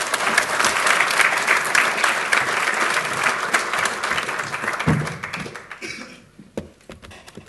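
Audience applauding: dense clapping that fades away about six seconds in.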